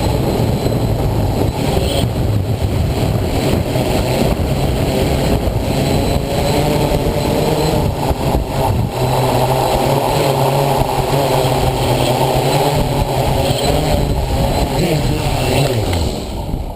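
Mikrokopter Hexa XL hexacopter's six electric motors and propellers droning steadily in flight, with heavy wind buffeting the microphone. Near the end the motors' pitch slides down and the sound begins to die away as they slow.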